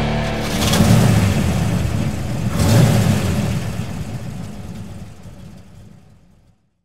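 Outro logo sound effect: two surging, engine-like rumbles with a rush of noise, about a second in and again near three seconds, then fading away to silence.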